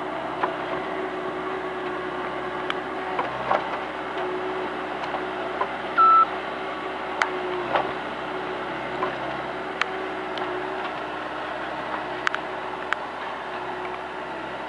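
Bobcat S160 skid-steer loader's diesel engine running steadily, with scattered clicks and knocks. A single short beep about six seconds in is the loudest sound.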